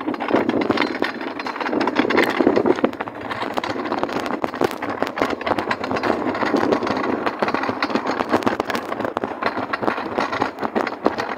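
Shopping trolley rolling across interlocking brick paving, its wheels and green plastic basket rattling in a steady, dense clatter over the paving joints.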